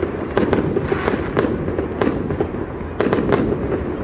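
Aerial firework shells bursting in a fireworks display: a string of sharp bangs at uneven intervals, with a quick cluster of three about three seconds in.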